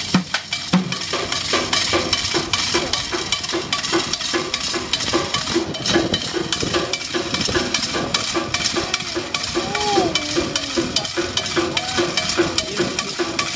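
Street drumming on an improvised kit of a metal pot, a frying pan, a metal grate and metal strips, struck with sticks in a fast, dense, steady rhythm with a repeating low pulse.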